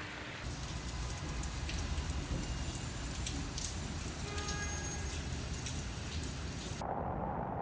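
Heavy rain falling, a steady dense hiss. Near the end it cuts to a duller, narrower rushing noise.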